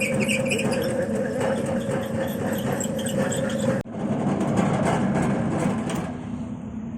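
Motorised chip-slicing machine running steadily with a constant hum and rattle. The sound breaks off for an instant just past halfway, then runs on.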